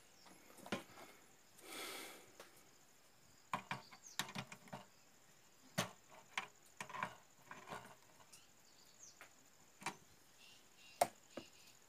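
Hands and tools handling parts and the metal case of an open voltage stabilizer: scattered sharp clicks and taps, a short scrape about two seconds in, and the sharpest click near the end.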